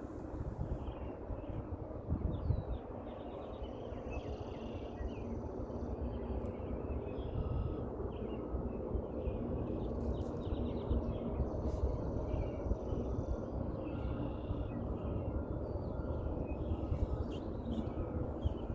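An unexplained low rumble from the sky, steady and slowly growing louder, with birds chirping over it.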